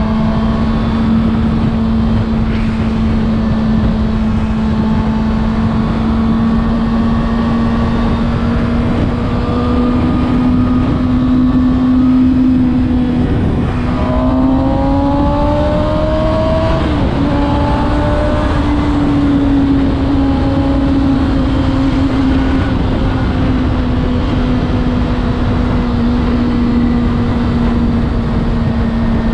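Kawasaki Ninja ZX-6R inline-four engine running at a steady cruise under a heavy rush of wind noise. About halfway through, the engine pitch rises briefly as it accelerates, then eases back to a steady note.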